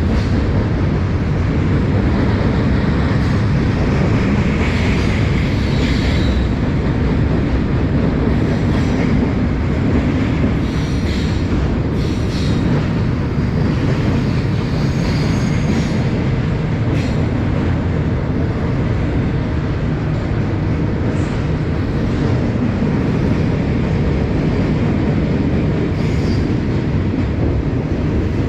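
Norfolk Southern freight train rolling past, a steady loud rumble of railcars on the rails with brief high wheel squeals and clicks now and then.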